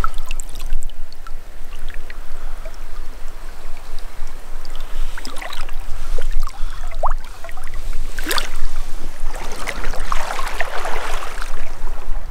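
River water splashing and gurgling around a rainbow trout held in the shallow current, over a steady low rumble. A sharp splash comes about eight seconds in and a longer burst of splashing around ten seconds in.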